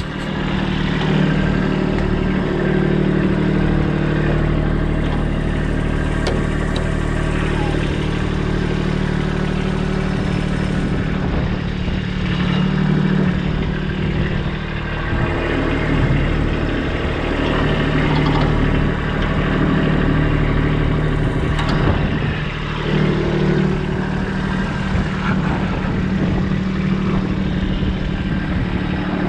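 Kubota B2601 compact tractor's diesel engine running steadily, with small rises and falls in pitch as it works.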